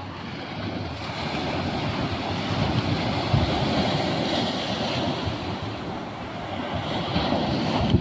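Ocean surf breaking and washing up a sandy beach, a steady wash that swells over the first few seconds, eases a little and builds again near the end. Wind buffets the phone's microphone, adding a low rumble.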